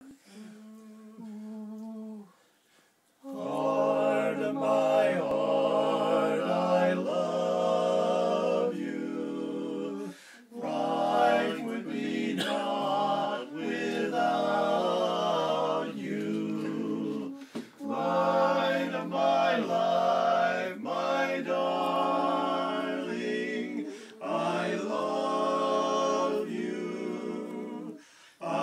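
A barbershop quartet of men's voices singing a cappella in four-part harmony, in sustained phrases with short breaths between them. A single steady note sounds briefly first, about a second and a half long, before the full chords begin.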